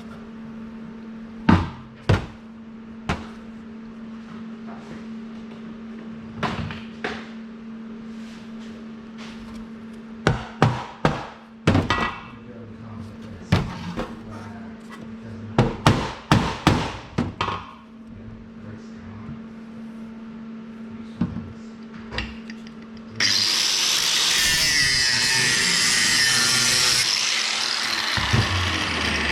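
Workshop sounds: a string of sharp knocks and clatters over a steady low hum, then a power tool starts suddenly near the end and runs loudly for about six seconds.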